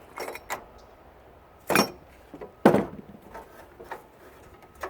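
Knocks and clinks of metal water-heater parts being handled and set down, with two louder knocks near the middle and lighter taps around them.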